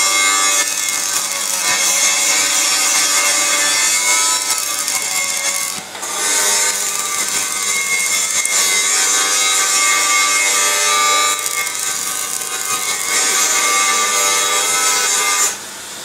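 Stick-welding arc from a coated electrode welding a steel hinge onto a steel frame, a loud, steady hiss. It breaks off for a moment about six seconds in, then runs on and stops shortly before the end.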